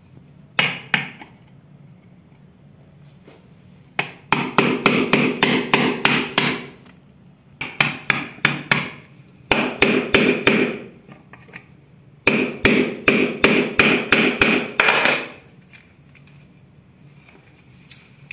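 A hammer striking a screwdriver's handle to drive its blade into a coconut shell. A short pair of blows comes first, then four quick runs of about four blows a second, with short pauses between the runs.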